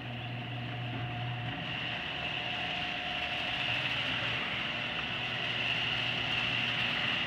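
Genie screw-drive garage door opener running, its motor turning the screw rail to raise the door: a steady hum with a high whine over it.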